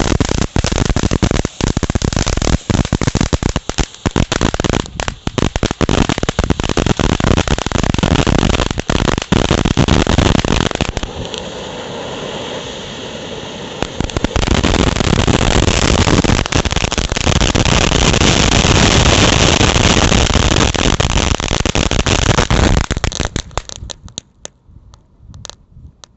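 Lemonade Fountain ground firework spraying with loud, dense crackling and many sharp pops. Partway through it eases to a quieter hiss for a few seconds, then builds to its loudest, steady crackle in the finale. Near the end it dies out into a few scattered pops.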